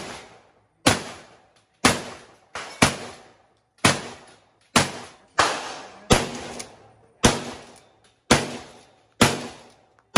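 A shotgun fires a rapid string of ZALA IPSC Line shells, about eleven shots roughly a second apart. Each sharp bang trails off in a short echo.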